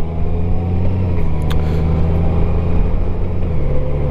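Honda Gold Wing's flat-six engine running steadily at low road speed, with wind and road noise; its note steps down slightly about three and a half seconds in.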